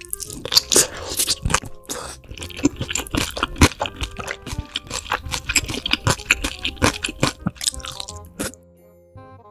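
Close-miked crunching and chewing of fried chicken: many sharp crackles in quick succession. They stop about a second before the end, leaving soft music with chime-like notes.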